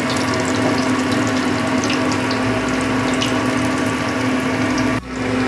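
Chicken bara patties shallow-frying in hot oil in a kadai on a medium flame: steady sizzling with many fine crackles, over a low steady hum. The sound briefly cuts out near the end.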